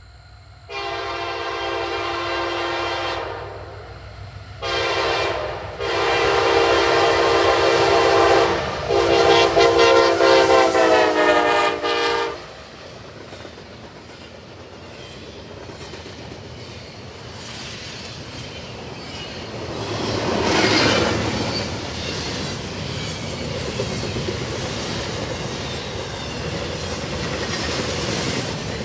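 CSX freight locomotive's five-chime K5LA air horn sounding four chords, the last and longest dropping in pitch as the locomotive passes. Then a fast double-stack intermodal train rolls by, steel wheels clattering over the rail, swelling louder about two-thirds through.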